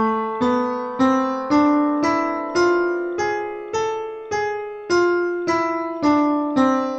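A harmonic minor scale on a sampled piano from a browser-based virtual piano keyboard, played one note at a time at about two notes a second. It climbs an octave from A, with the raised seventh (G sharp), then starts back down.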